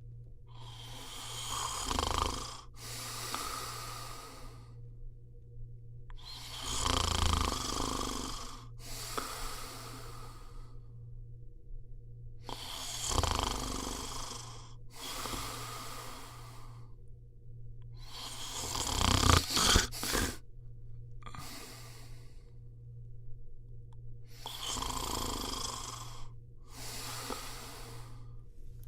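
A person snoring in slow, regular breaths, about five in all, roughly six seconds apart. Each is a rough snore followed by a softer breathy one. The fourth, about two-thirds of the way through, is the loudest, and a faint steady low hum runs underneath.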